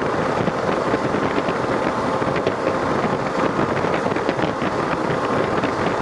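Steady wind rushing over the microphone of a moving Kawasaki KLR650 motorcycle, its single-cylinder engine running under the wind noise. The wind noise is loud because the rider's helmet visor is cracked open.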